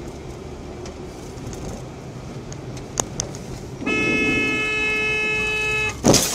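Road and engine rumble heard from inside a car, then a car horn held steadily for about two seconds, cut off by a sudden loud crash near the end as the car meets the sedan that has swerved across its path.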